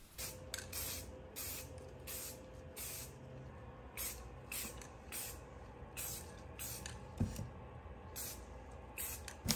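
Aerosol spray paint can sprayed in many short hissing spurts, about two a second, to give a light speckled mist of paint. There is a pause about seven seconds in, then two more spurts.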